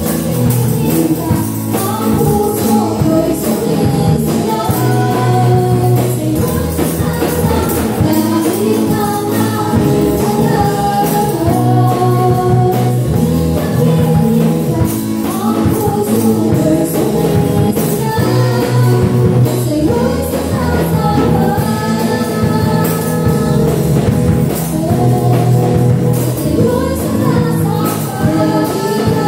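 Live gospel worship music: several voices singing a melody over a band with drum kit, and hand tambourines jingling in time as the dancers shake them.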